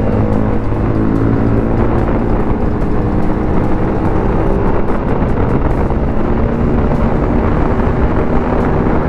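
BMW G 310 RR's single-cylinder 313 cc engine running under way, its pitch drifting slowly up and down as the throttle changes, with wind rushing past the microphone.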